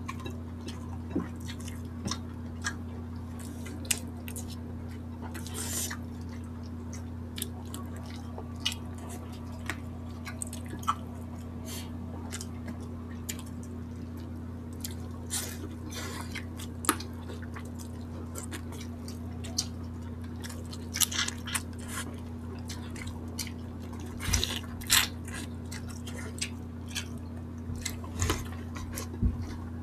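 Close-miked eating sounds of chicken and rice taken by hand: scattered wet chewing clicks and lip smacks, a few louder ones near the end, over a steady low hum.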